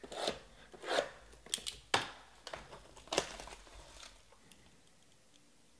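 Plastic shrink wrap on a sealed trading card box crinkling in a few short, sharp bursts as it is handled and pulled at, dying away after about three and a half seconds.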